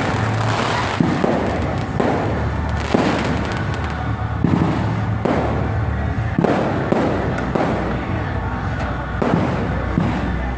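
Fireworks display: aerial shells bursting one after another, about one or two bangs a second, over a steady low rumble of echoing detonations.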